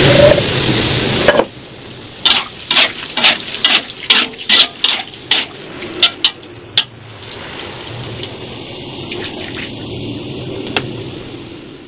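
Cooking sounds: a rush of liquid pouring for about the first second and a half, then a utensil scraping and knocking against a pan about twice a second for several seconds, then a steady frying hiss.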